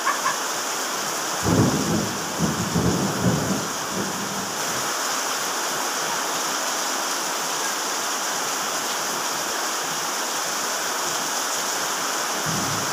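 Heavy rain pouring steadily, a dense even hiss. About a second and a half in, a low rumble rises and lasts a couple of seconds, with a shorter one near the end.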